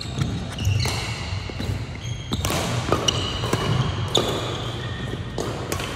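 Badminton rally: racket strings striking the shuttlecock several times a second or so apart, with sneakers squeaking and footsteps thudding on the wooden court floor.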